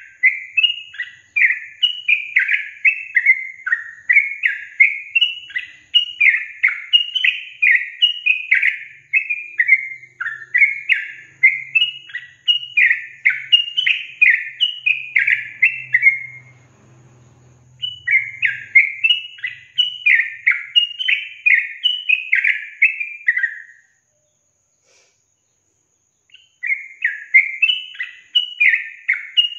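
Yellow-vented bulbul (trucukan) song: long, rapid runs of short chirping notes, broken by a short pause about 16 seconds in and a longer one from about 24 to 27 seconds.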